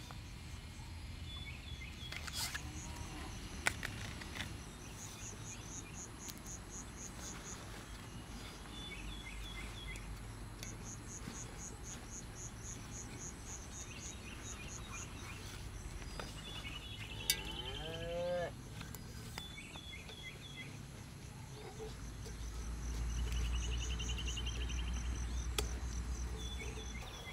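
Outdoor ambience dominated by an insect chirping in rapid pulsed trains of a couple of seconds each, repeating several times, with other short high chirps and a few light clicks. A low rumble swells near the end.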